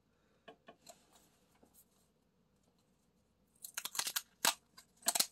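Paper pull-tab lottery tickets being torn open: a few faint paper ticks, then quick crackling rips of the tabs about three and a half seconds in and again near the end.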